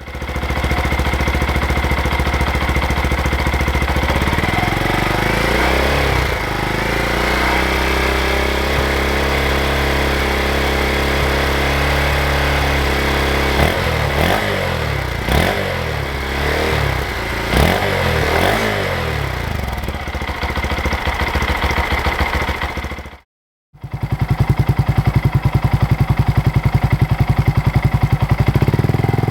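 Honda Monkey 125's single-cylinder four-stroke engine running through its exhaust: it idles steadily, the revs swell from about six seconds in, and then comes a series of sharp throttle blips. After a short break near the end, it idles again with a strong, even pulse.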